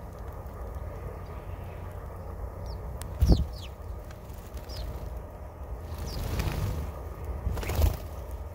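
A few short, high chirps from birds at a feeder, each falling in pitch, over a steady low rumble. A sharp thump comes about three seconds in, and near the end two brief rushing sounds that fit wingbeats.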